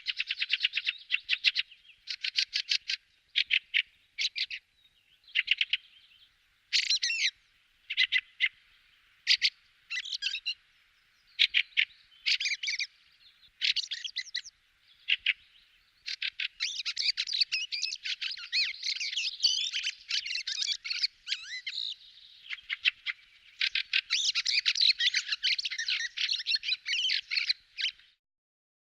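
Fieldfare calling: short bursts of rapid, harsh chattering notes with pauses between them, then longer unbroken runs of chattering in the second half.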